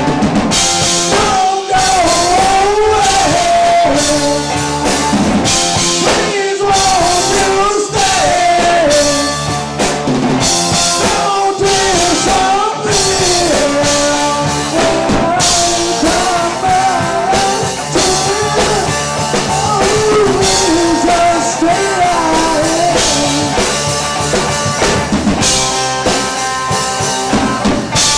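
Live rock band playing a song: a male voice singing over electric guitar, bass guitar and drum kit.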